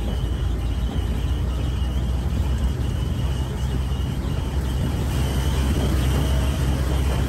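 Open-air Grand Super Cart rail cart running along the track, a steady low rumble of its motor and wheels that grows a little louder and fuller as it enters a tunnel about five seconds in.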